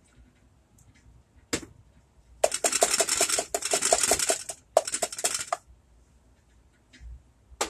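A plastic measuring cup is knocked rapidly against the rim of a saucepan, about six quick taps a second, to shake the last tomato sauce out. There is a long run of taps, a short pause, then a shorter run, with a single click before and after.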